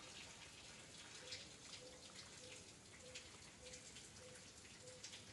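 Near silence: faint background hiss with scattered soft ticks and a faint short low note repeating a little under twice a second.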